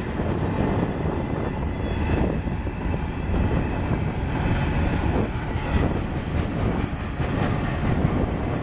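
Freight train's tank cars and covered hoppers rolling past close by: a steady rumble of steel wheels on rail.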